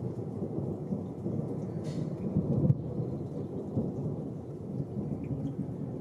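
Thunder rolling, a low continuous rumble that swells to its loudest about two and a half seconds in.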